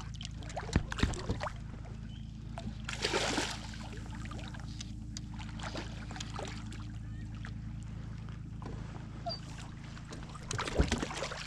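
Boat motor running with a steady low hum. A few sharp clicks come about a second in, and a short splashy rush about three seconds in.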